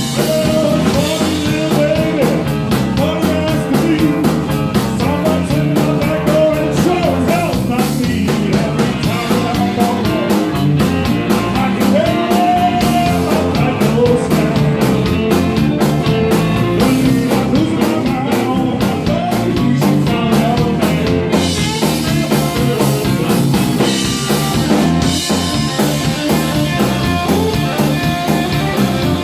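Live rock band playing: electric guitar with bending notes over a steady drum-kit beat, with singing.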